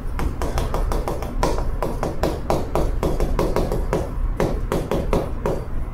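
Chalk on a chalkboard during handwriting: a quick, uneven run of sharp taps and short scrapes, about five a second, as each stroke lands.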